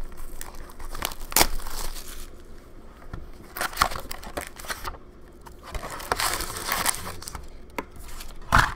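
Plastic shrink-wrap crinkling and tearing as a sealed hockey card box is cut open and its packs are pulled out, with a couple of sharp knocks about a second and a half in and near the end.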